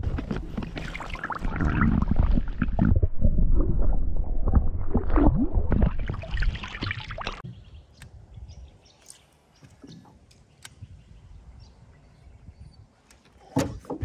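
Wind buffeting the microphone and water sloshing beside a small boat for about seven seconds, then a much quieter stretch with scattered light clicks and a burst of sharp clicks near the end.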